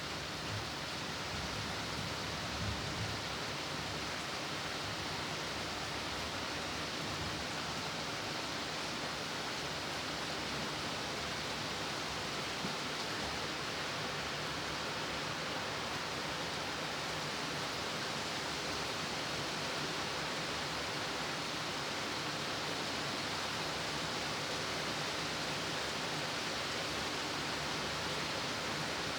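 Steady rain falling as an even, unbroken hiss, with no separate drops or thunder standing out.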